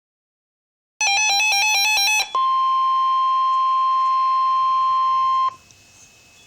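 Weather radio receiver sounding a warning alert: about a second of fast two-pitch warbling beeps, then the steady 1050 Hz NOAA Weather Radio warning alarm tone for about three seconds, cutting off suddenly. It signals that a warning, here a severe thunderstorm warning, is being broadcast.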